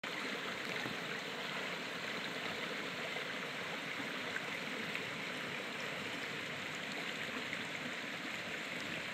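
Shallow rocky creek running over and between stones, a steady rush of water.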